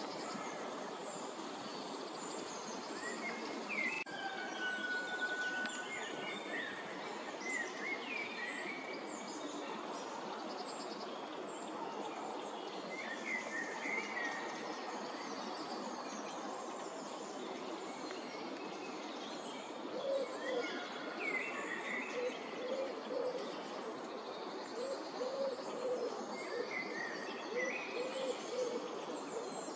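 Small wild birds chirping and singing at intervals over a steady hiss of outdoor background noise. From about two-thirds of the way in, a lower-pitched call repeats in short groups.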